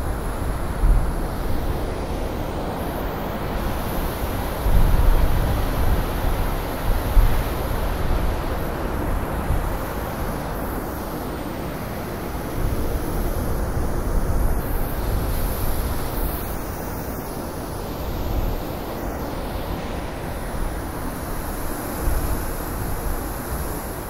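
Blizzard wind blowing in gusts, a steady rushing noise with a deep rumble underneath, swelling most strongly about five and seven seconds in.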